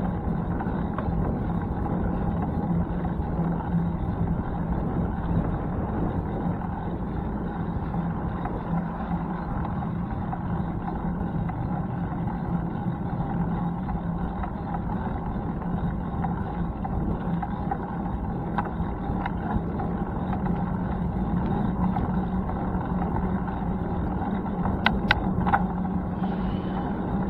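Steady rumbling noise of riding a bicycle, wind and road noise on the camera, with a low hum throughout and a few sharp clicks a couple of seconds before the end.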